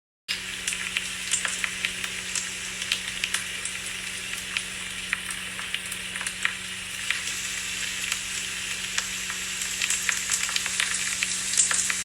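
Frying-pan sizzle, as of a grilled cheese sandwich cooking: a steady hiss full of sharp crackles and pops, growing a little louder about seven seconds in, over a faint steady hum.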